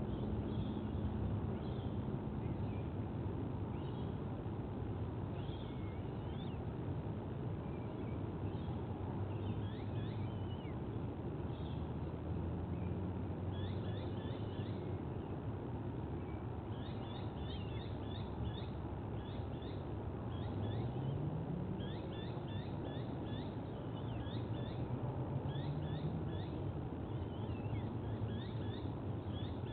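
Birds chirping in quick series of short high notes, sparse at first and much busier from about halfway through, over a steady low rumble.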